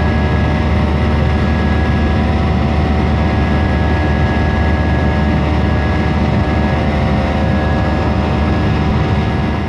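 Jet airliner engines heard from inside the passenger cabin during the climb after takeoff: a loud, steady rush over a low drone, with several steady high whining tones.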